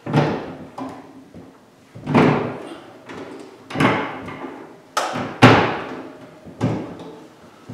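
Sharp metal clanks and knocks, about six spaced irregularly, the loudest a little past halfway, from a Comfort Zone electric garage heater's housing and ceiling mounting bracket as the heater is bolted into place.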